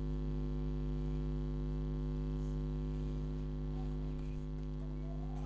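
Steady electrical mains hum with a low buzz.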